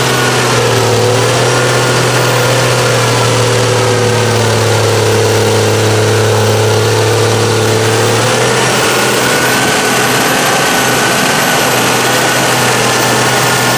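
Mega mud truck's engine running hard at steady high revs while it ploughs through deep mud. The drone holds an even pitch and shifts slightly about eight seconds in.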